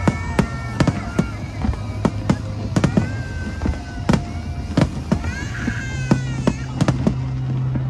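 Fireworks bursting in a string of sharp bangs, about two a second, that thin out near the end.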